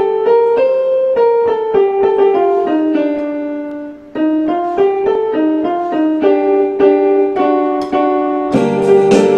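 Electronic keyboard playing a melody one note at a time with a piano-like voice. The tune fades and pauses briefly a little before halfway, then starts again, and a lower accompaniment comes in near the end.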